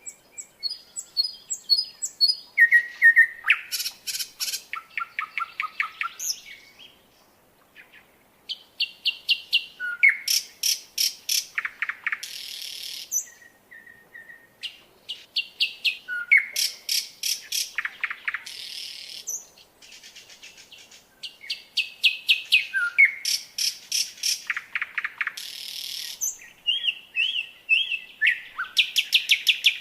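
A songbird singing a long, varied song in repeated phrases of a few seconds each. The phrases are made of fast rattling trills, clear whistled notes and short buzzy notes, with brief pauses between them.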